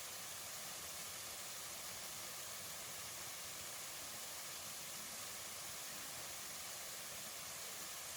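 Waterfall water rushing, a steady even roar with no breaks.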